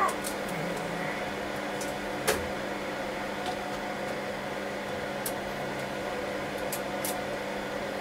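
Steady hum of fans in a server room, holding several fixed tones, with a few light clicks and one sharper knock about two seconds in as a server chassis is handled.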